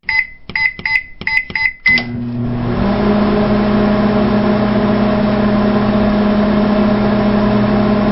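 LG microwave oven: a quick series of about six keypad beeps as its controls are pressed, then the oven starts and runs with a steady hum.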